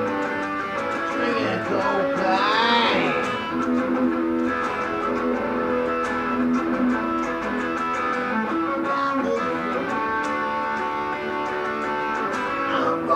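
Guitar music with held notes.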